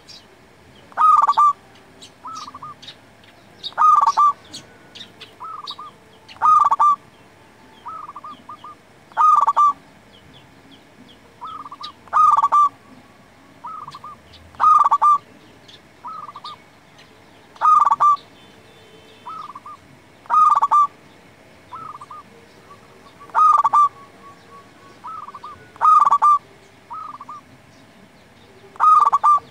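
Zebra dove (perkutut) singing its cooing song over and over, about every two and a half seconds: each phrase a loud coo followed by two or three quicker, softer notes. Faint high chirps of small birds sound between the phrases.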